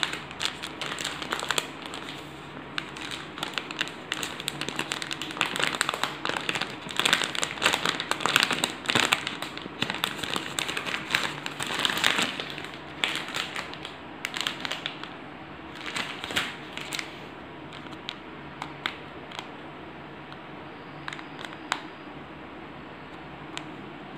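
Plastic wrapper of a sanitary napkin packet crinkling as it is handled and turned over: dense, irregular crackling for most of the time, thinning to a few scattered crackles near the end.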